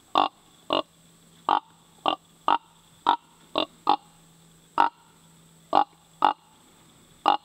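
Whitetail buck tending grunts blown on a handheld grunt tube call: a string of about a dozen short, clipped grunts at an uneven pace, some in quick pairs. This is the call a buck makes while trailing or tending a doe during the rut.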